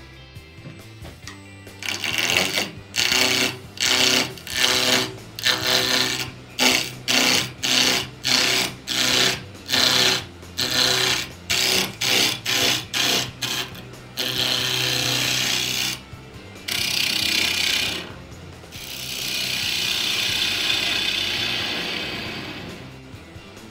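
Wood being worked in short rasping strokes, about two a second, for some twelve seconds. Then come two longer steady stretches of rasping and a longer hiss that swells and fades near the end.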